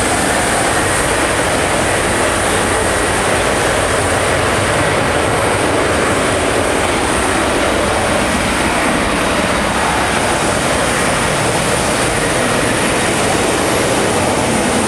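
Jet engines of a KLM Airbus A330 rolling along a wet runway: a loud, steady roar that holds the same level throughout.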